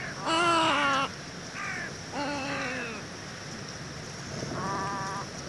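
Little egret (Egretta garzetta) calling: four croaking calls, the first the loudest, the third falling in pitch.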